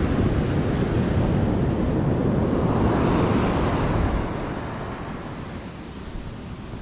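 Ocean surf breaking and washing up a sand beach, with wind rumbling on the microphone. The loud rumble eases about four seconds in, leaving a quieter steady wash of surf.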